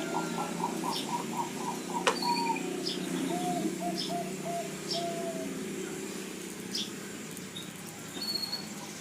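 Several Bangkok-strain zebra doves (perkutut) cooing together, each giving its song as a run of short, quick repeated notes; one bird's clear run comes at the start and another about three and a half seconds in, over a dense chorus of other doves. Small birds chirp high above.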